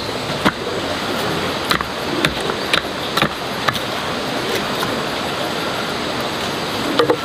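Wooden pole ramming loose soil around the base of a wooden post to tamp it firm: a series of sharp knocks, about two a second, thinning out in the second half, over a steady rushing background noise.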